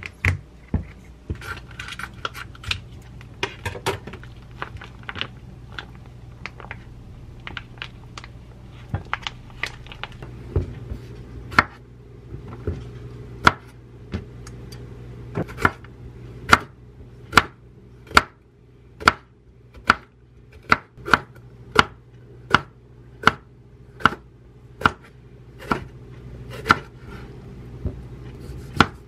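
Kitchen knife slicing long sweet peppers into rings on a wooden cutting board, each cut ending in a sharp knock on the board. The knocks come in an even rhythm about once a second from about ten seconds in; before that there are lighter, irregular knocks. A steady low hum runs underneath.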